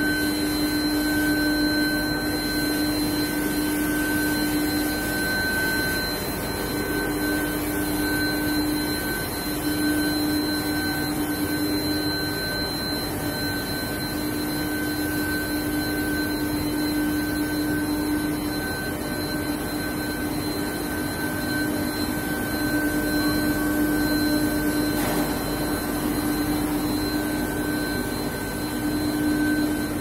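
Steel-bar induction hardening and tempering line running: a steady machine drone with a constant low hum and a fainter, higher whine over it.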